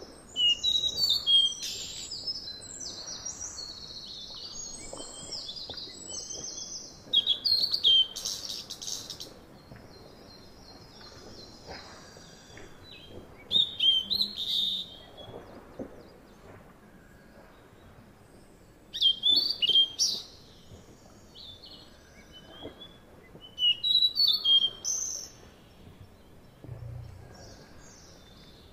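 Birds chirping in short bursts of quick, high notes, about five bursts a few seconds apart, over a faint steady background hiss.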